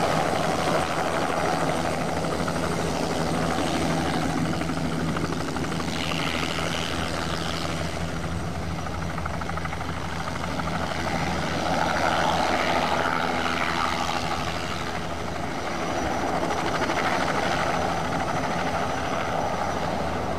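Crop-spraying helicopters hovering and setting down in formation: a steady engine hum under rotor noise that swells and fades as they move.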